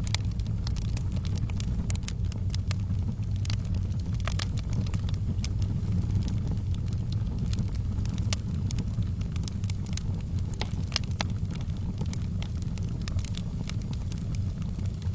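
Wood fire burning in a fireplace: a steady low rumble of the flames with frequent, irregular crackles and pops from the burning logs.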